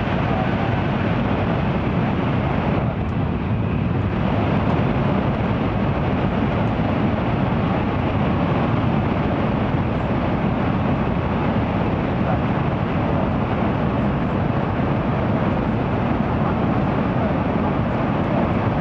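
Steady running noise of an N700-series Shinkansen travelling at speed through a tunnel, heard from inside the passenger cabin. The upper part of the noise briefly dulls about three seconds in.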